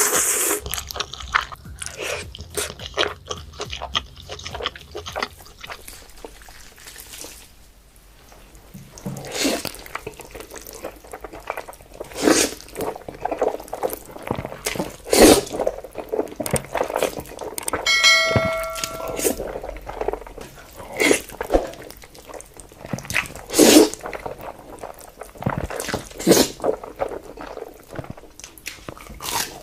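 Close-miked eating sounds: a person biting and chewing food, with many short, irregular mouth and food noises. About two-thirds of the way in there is a brief pitched sound lasting about a second.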